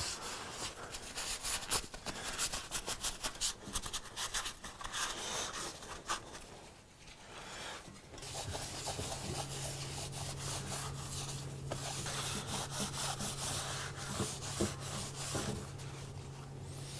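Rapid back-and-forth hand rubbing strokes, like scrubbing or sanding a part during restoration, with a short pause about six seconds in. A steady low hum comes in about eight seconds in and runs under the continued rubbing.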